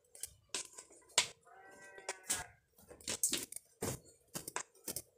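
Cooked rice being tipped and scraped out of a metal liwet pot: a series of irregular sharp scrapes and knocks, with a short squeaky tone about two seconds in.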